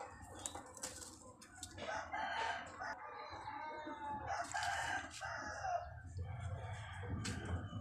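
Rooster crowing twice, the calls about two and four and a half seconds in.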